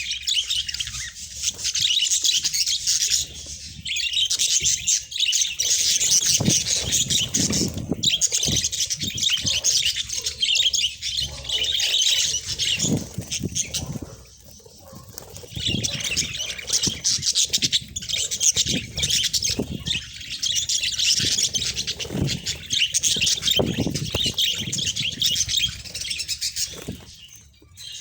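A flock of budgerigars chattering, a dense run of fast chirps and warbles that dips briefly about halfway through, with low thuds mixed in.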